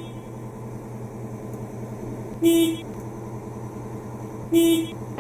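Tractor horn honked in two short blasts about two seconds apart, each under half a second, over a steady low hum.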